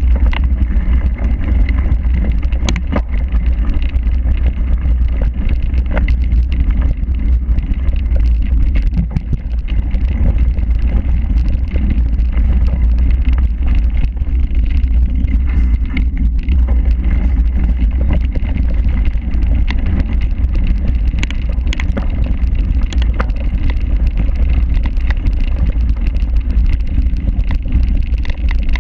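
Steady low rumble and wind buffeting on the microphone of an action camera on a cyclocross bike ridden fast over a rough grass-and-dirt course. Scattered sharp knocks and rattles come from the bike jolting over bumps.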